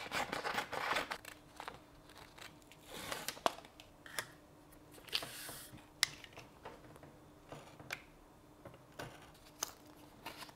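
Scissors snipping through a sheet of self-adhesive label paper at the start, then paper rustling and a few sharp clicks and taps as the cut-out labels are handled on the bench.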